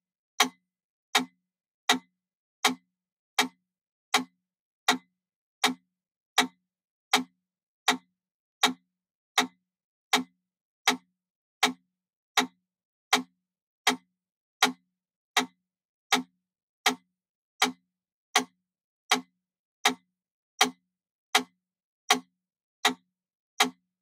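Wooden mechanical pendulum metronome ticking steadily at 80 beats per minute, one click every three-quarters of a second.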